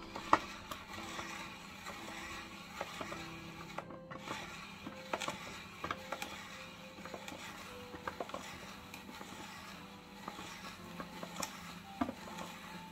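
Hand-cranked spiralizer cutting a carrot into spirals: a steady rasping with irregular clicks as the crank turns. Soft background music plays underneath.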